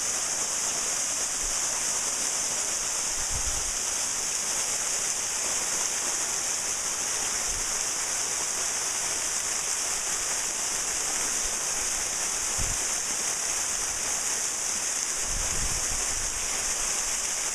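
Waterfall of about 20 to 25 feet, its water pouring and splashing in a steady, unbroken rush.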